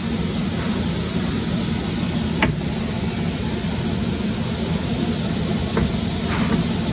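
Steady low hum of running workshop machinery, with a few short clicks and scrapes as a screwdriver works hardened glue out of an edgebander's metal glue pot.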